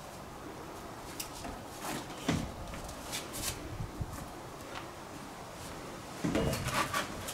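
A person clambering in through an open sash window: scattered knocks, bumps and scrapes of body and shoes against the window frame and sill, with a louder cluster of knocks near the end.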